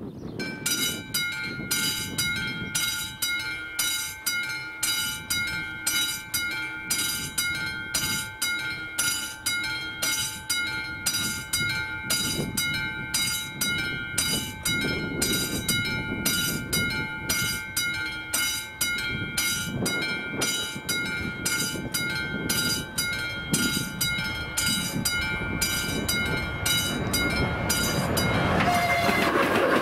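Classic mechanical warning bell of an AŽD 71 level-crossing signal ringing in steady, evenly spaced strokes, about two a second, warning of an approaching train. It starts about half a second in and stops near the end, as the rumble of the approaching train grows louder.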